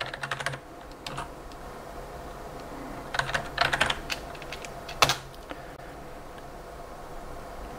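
Typing on a computer keyboard in quick bursts of keystrokes, ending with one harder single keystroke about five seconds in as the command is entered. After that only a faint steady hum remains.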